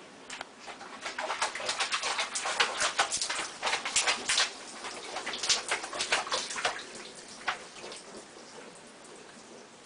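Water splashing and sloshing in a sink of soapy dishwater as a cat paws at it: a quick, irregular run of small splashes that builds about a second in, is busiest in the middle and dies away near the end.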